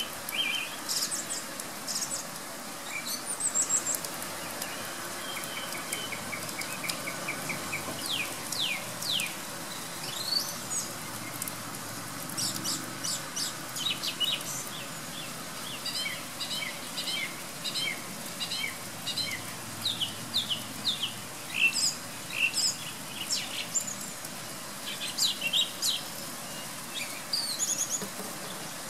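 Song thrush singing varied phrases of clear whistles, glides and quick runs of repeated notes. Under the song is the steady hiss of pouring rain.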